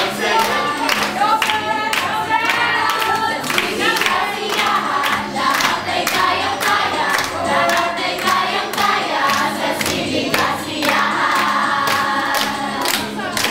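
A song with a steady beat, sung by many voices together.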